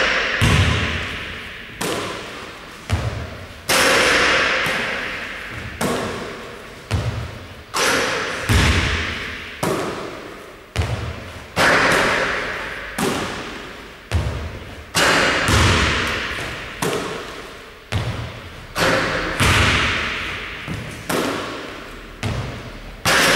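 A basketball thudding on a hardwood gym floor, hitting the rim and being caught and passed during repeated shooting. Sharp impacts come about once a second, each ringing out with a long echo in the hall.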